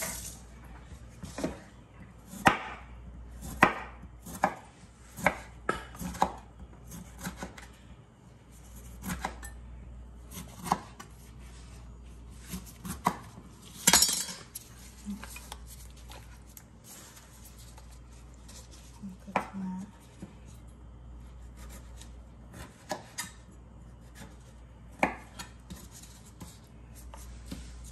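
Chef's knife slicing a lime on a cutting board: irregular sharp knocks of the blade striking the board, usually a second or two apart, some louder than others.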